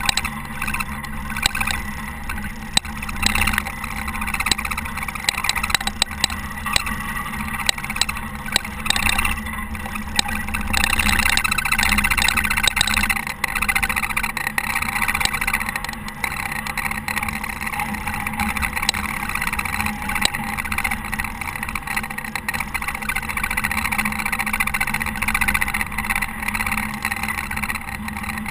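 Caterpillar TH330B telehandler's diesel engine running while it plows snow, with frequent knocks and rattles; it grows louder about eleven seconds in.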